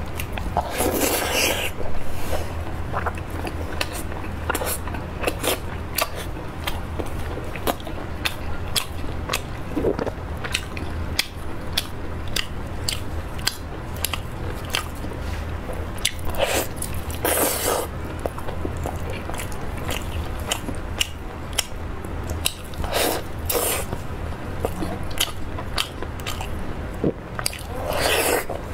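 Close-miked chewing and biting of pork belly: a steady run of wet mouth clicks and smacks, with a few louder bites lasting about a second each. A steady low hum runs underneath.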